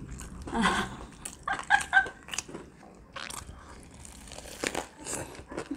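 Two people biting into and chewing homemade Zinger-style fried-chicken burgers: a run of crunchy bites and chewing clicks, with a short vocal murmur about two seconds in.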